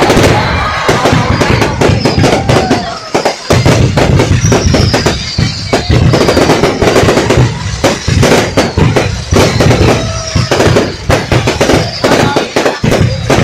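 Aerial fireworks display going off: a rapid, dense string of bangs and crackles over a continuous low rumble, with several shells rising and bursting at once.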